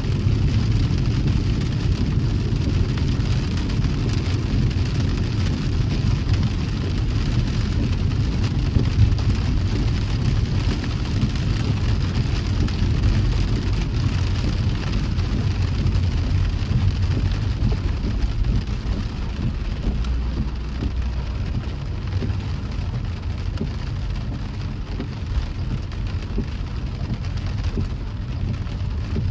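Steady rumble and hiss of a car driving through rain on a wet road, with no separate events standing out.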